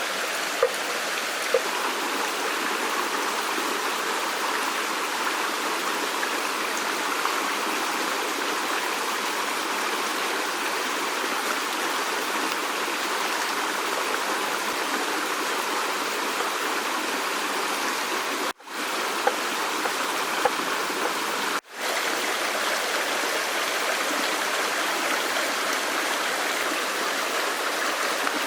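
Stream water rushing steadily over rocks, an even hiss of flowing water that cuts out for a split second twice, about two-thirds of the way through.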